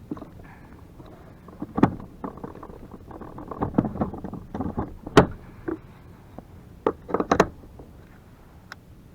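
Scattered clicks and knocks of fishing gear being handled on a kayak: rods and a rod balancer being fitted into rod holders. The loudest knocks come about two seconds in, about five seconds in, and in a quick cluster around seven seconds.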